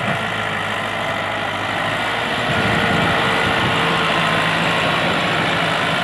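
Massey Ferguson 385 tractor's four-cylinder diesel engine running steadily while pulling a tine cultivator through the soil. It gets a little louder about halfway through as the tractor comes closer.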